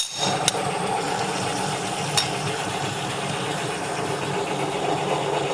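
Bialetti Mukka Express stovetop cappuccino maker hissing and bubbling steadily as it heats and brews, with a sharp click at the start and two light ticks.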